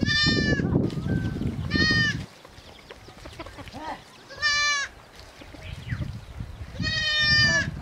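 Goats bleating: four short, high-pitched bleats spaced a couple of seconds apart, over a low rumbling noise.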